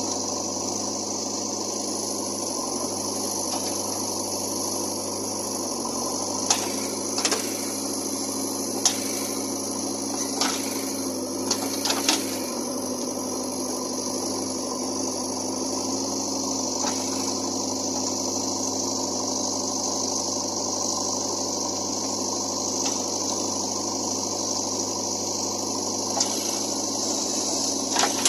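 JCB 3DX backhoe loader's diesel engine running steadily, with a high hiss over it and a scatter of sharp clanks and knocks, most of them in the first half.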